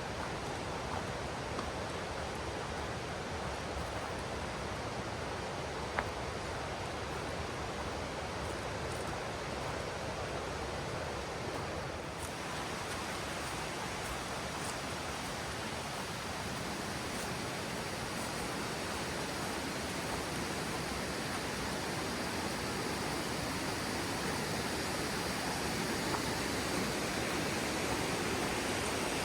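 Steady rush of falling water from a waterfall, growing slightly louder near the end, with a single faint click about six seconds in.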